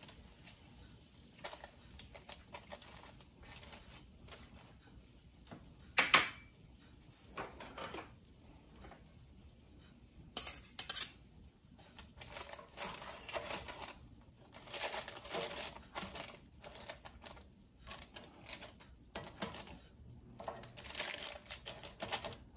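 Scattered light crackling and clicking of crisp baked turon wrappers and parchment paper being handled with a brush, knife and tongs, with one sharp knock about six seconds in.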